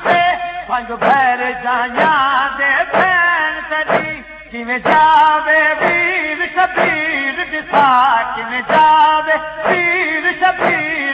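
A man singing a Punjabi noha (Shia lament) in a wavering, ornamented voice, over a steady thump about once a second in time with chest-beating (matam). He pauses briefly about four seconds in.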